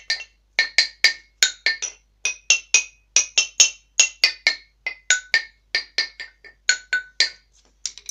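Xylophone played by a child: a tune of single high struck notes, about three a second, each ringing briefly and dying away.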